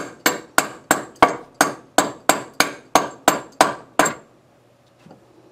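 Rapid, even hammering, about a dozen sharp blows roughly three a second, driving a bolt into the wooden beam of an EarthLoom frame. The blows stop about four seconds in.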